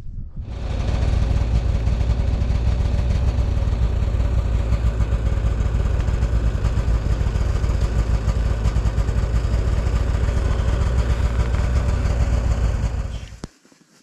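An engine running steadily with a deep hum, then cutting off suddenly near the end.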